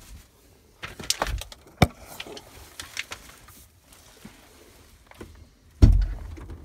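Scattered clicks and knocks from handling inside a truck cab, with one heavy low thump about six seconds in. No engine is running.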